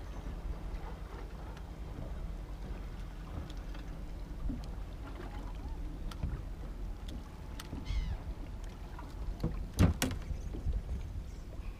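Water lapping against the hull of a small boat at rest on calm water, with small clicks and knocks of gear on board; one sharper knock about ten seconds in.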